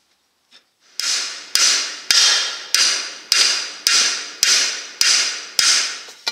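A hammer striking the steel disc blades and spools of a disc-harrow gang: about ten metal blows, a little under two a second, each ringing and dying away before the next.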